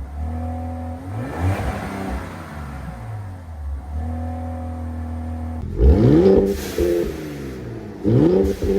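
Car engine idling through an aftermarket exhaust and being revved: a short rev about a second and a half in, then three sharp revs that climb in pitch near the end. The first of the three is the loudest.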